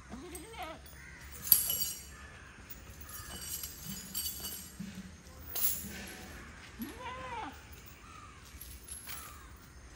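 Sharp metallic clinks of an elephant's tether chain, the loudest about a second and a half in and a weaker one near the middle, with arching bird calls around them.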